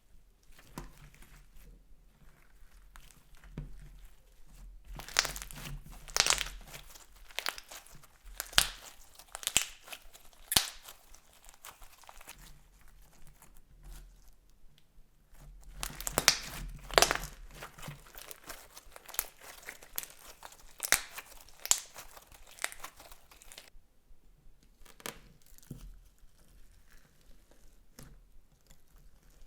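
Slime being squeezed and worked by hand, with two spells of sharp crackling and popping clicks and quieter scattered clicks between them.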